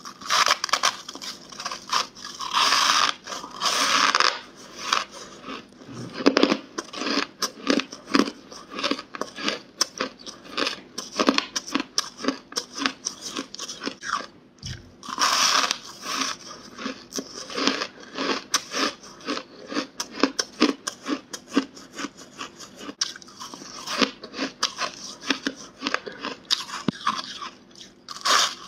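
Big bites into hard, crunchy frozen ice, then crisp chewing: dense rapid crunching throughout, with the loudest bites a couple of seconds in and again about halfway.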